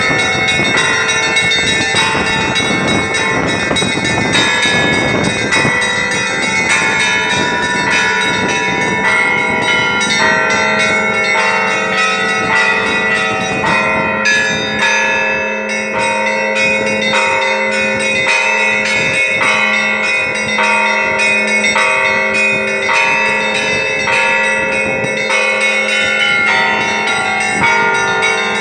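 Several church bells rung together in a festive Easter peal: smaller bells struck over and over in a steady rhythm above a deep bell that keeps sounding throughout.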